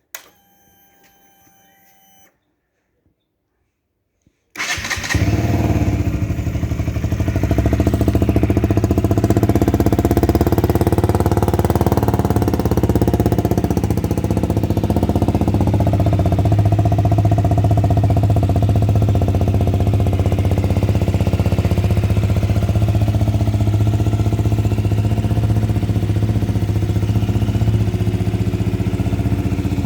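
KTM Duke 125's single-cylinder four-stroke engine cold-starting: a click and a short faint steady whine as the ignition is switched on, then about four and a half seconds in the engine fires and settles into a steady cold idle.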